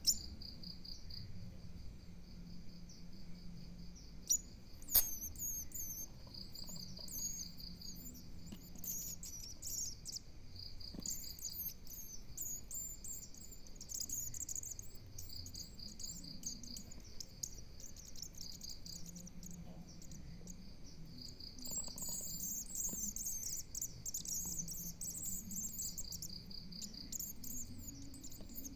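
Sogon (sunbird) nestlings giving high-pitched begging chirps in clusters while being hand-fed. A steady pulsed trill, like a cricket's, repeats every few seconds behind them, and two sharp clicks come about four and five seconds in.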